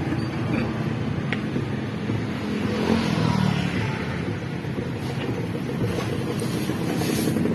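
Road traffic on a city street: small motorcycle and tricycle engines and cars driving past, a steady rumble that swells as vehicles pass and grows louder near the end.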